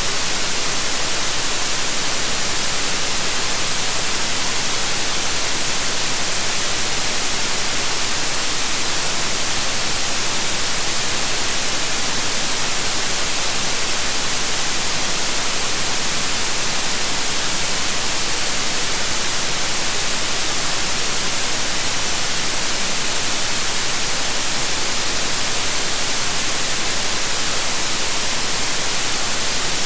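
Steady synthetic white noise: an even, unbroken hiss that never changes.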